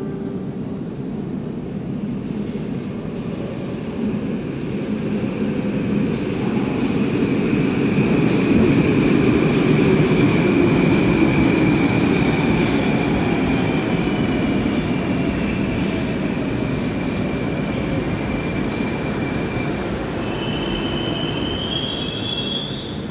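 Moscow metro 81-765.3 'Moskva' train arriving at the platform: a rumble of wheels on rails that grows as it comes out of the tunnel, is loudest as the cars pass, and eases off as it slows to a stop, with a steady high whine over it. A short rising whine comes near the end as the train halts.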